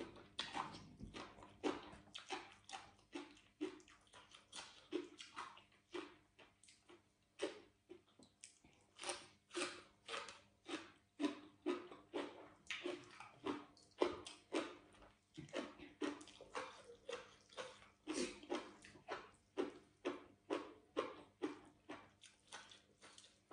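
Close-up mouth sounds of a person eating spicy shredded cucumber salad by hand: chewing and lip-smacking heard as a faint run of soft clicks, about two or three a second, with short pauses.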